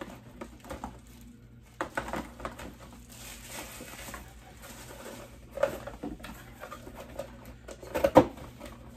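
Packaging and items being handled on a tabletop: scattered rustling and light clicks, then a few sharper knocks, the loudest about eight seconds in.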